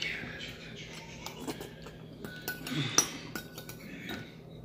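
Metal spoon clinking and scraping against a soup bowl while eating, a scatter of light clinks with the loudest about three seconds in, some leaving a short ringing tone.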